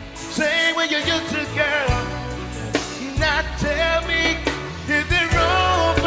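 A man singing an R&B slow jam over a backing track with a steady bass line, his voice bending through long wavering runs rather than clear words. The singing is put on to sound stuffed-up, as if he had a sinus infection.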